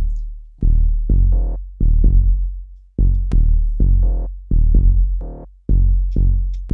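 Minimal house track playing back, led by a deep synth bassline: short decaying bass notes in a repeating two-note rhythm, with a single sharp click about three seconds in.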